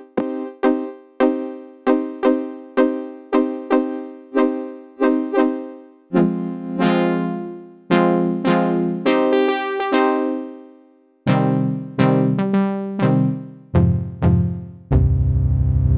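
Cherry Audio GX80 software synthesizer, an emulation of the Yamaha GX-1, being played. It starts with short decaying notes at about two a second, then moves to longer, brighter notes and lower notes with bass, its tone changing as it goes. About a second before the end a low chord starts and is held steady.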